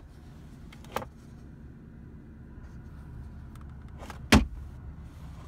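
Centre armrest storage lid being handled: a sharp click as it unlatches, a smaller click about a second later, and a loud thump about four seconds in, over a steady low cabin hum.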